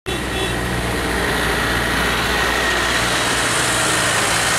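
Diesel engine of an Eicher light goods truck running as it passes close by, a steady low hum, with road noise that grows louder from about two seconds in as it draws near.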